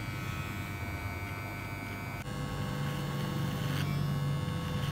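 Electric hair clipper buzzing steadily as it cuts a fade up the side and back of the head. About two seconds in its tone shifts and it gets slightly louder.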